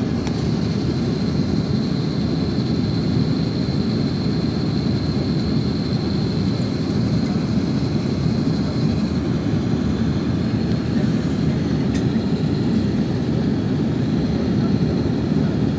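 Steady cabin noise inside an Airbus A330-900neo descending with flaps extended: a deep, even rush of air and Rolls-Royce Trent 7000 engine noise. A faint high whine fades out about nine seconds in and comes back near the end.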